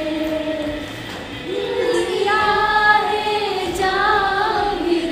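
Women singing a song together while rehearsing it, with long held notes.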